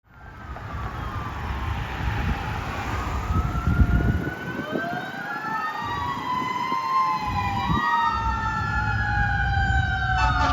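Fire engine sirens wailing, several tones gliding up and down and crossing each other over the low rumble of the truck's engine. The apparatus's air horn comes in just before the end.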